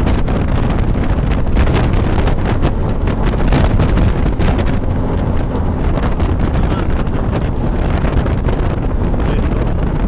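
Wind buffeting the microphone: a loud, steady low rumble with uneven gusts.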